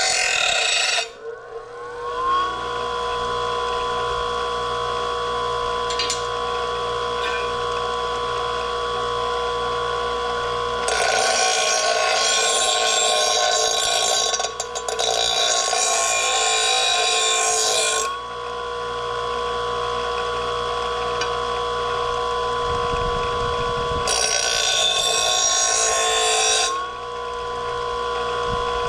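Electric grinder sharpening a steel mower blade: the motor whines steadily, with three spells of harsh grinding against the blade, briefly at the start, for about seven seconds in the middle, and for about three seconds near the end. The motor's pitch sags a little under the grinding and rises back when the grinder is lifted off.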